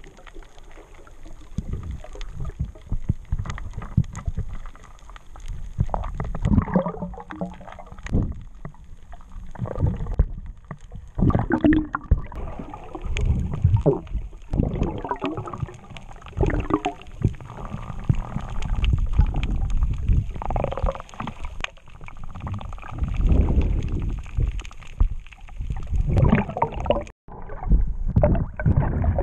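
Muffled underwater sound picked up by an action camera below the surface: irregular low rumbling and gurgling surges of water moving around the camera as the snorkeler swims.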